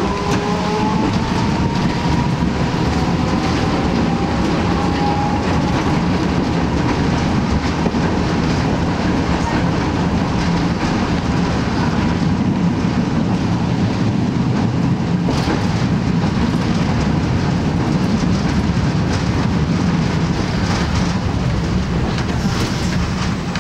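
Toyama Chiho Railway 7000-series streetcar running, heard from inside the cab: a steady loud rumble of motors and wheels on street track. A whine rises in pitch over the first few seconds, and there are a few wheel knocks later on.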